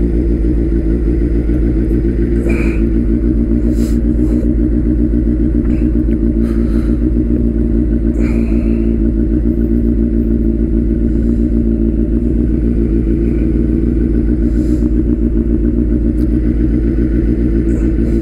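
Turbocharged Suzuki Hayabusa's inline-four engine idling loudly and steadily, with a fast, even pulse.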